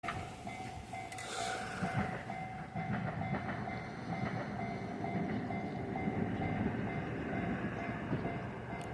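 Japanese level crossing alarm ringing with a rapid, steady repeating ding while a JR West train rumbles and clatters over the crossing.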